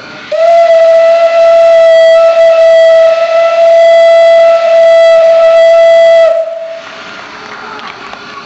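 Steam whistle of a ČSD class 422.0 steam locomotive sounding one long, steady blast of about six seconds, which cuts off sharply and leaves a brief echo in the hall.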